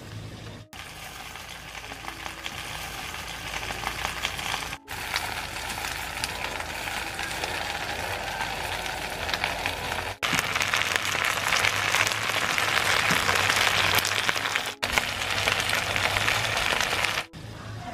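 Juices sizzling in a pan around a whole chicken over a wood fire: a dense, crackly hiss that grows louder through the second half, broken by four brief dropouts.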